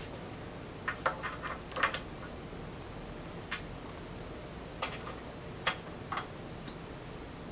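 Torque wrench clicking on the clutch cover bolts as they are torqued down to spec: a quick run of sharp clicks about a second in, then a few single clicks spaced out over the next several seconds.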